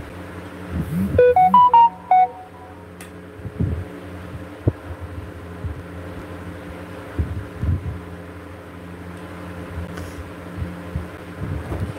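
A quick run of short electronic beeps at stepping pitches, about a second in, over a steady electrical hum. A few soft knocks follow later.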